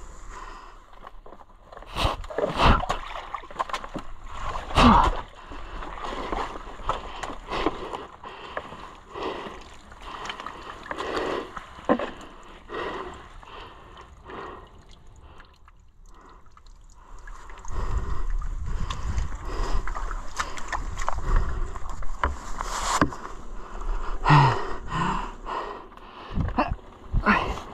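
Muddy water splashing and sloshing as a dirt bike is wrestled out of a deep water-filled rut, with the rider breathing hard. About two-thirds of the way through, a louder, steadier engine sound takes over as the bike gets going again.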